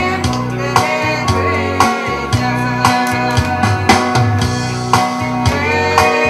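A woman singing a song into a microphone over amplified accompaniment with guitar and a steady drum beat.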